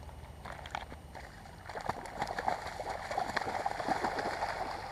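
Shallow water splashing and sloshing at the river's edge as a freshly released carp thrashes and swims off, starting about two seconds in with many quick splashes.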